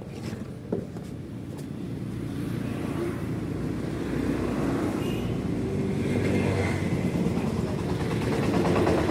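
A motor vehicle's engine running, growing gradually louder over several seconds, with a single click about a second in.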